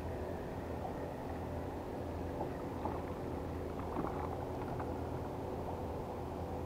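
Steady engine hum throughout, with a few faint splashes about midway as a hooked grayling thrashes at the surface and is drawn in.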